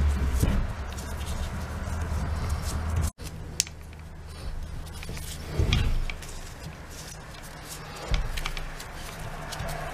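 Small clicks and knocks of hands handling the rubber cord strain relief, wires and plastic housing of a Milwaukee angle grinder while fitting them back together, with two duller knocks, one about halfway through and one near the end. A low hum runs through the first three seconds and cuts off suddenly.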